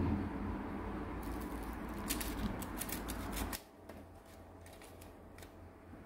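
Metal ladle clicking and scraping against a bowl while tteokbokki is served, a quick run of small clicks about two seconds in, over a steady low hum. The hum cuts off abruptly past halfway, leaving faint room tone.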